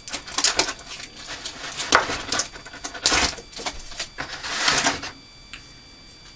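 Rustling and handling of firework-shell packaging as the shells are lifted out of their box, with a couple of sharper clicks; it stops about five seconds in.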